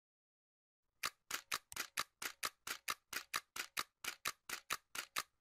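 A rapid, even run of sharp clicks, about five a second, starting about a second in: a ticking sound effect.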